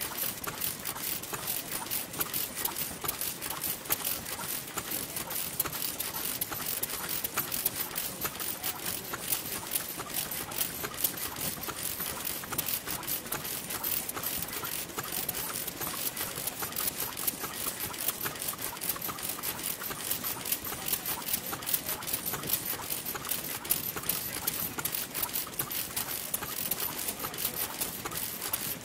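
Noda single-cylinder kerosene stationary engine running, its valve gear and ignition clattering in a fast, even run of ticks.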